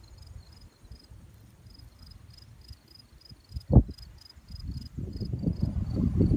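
Crickets chirping steadily in regular high pulses, about three a second. A single sharp low thump about four seconds in, then a low rumbling noise that grows toward the end.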